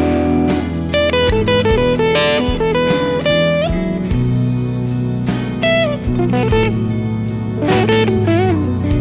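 Electric guitar playing a blues lead in single plucked notes, several of them bent in pitch, over steady low bass notes.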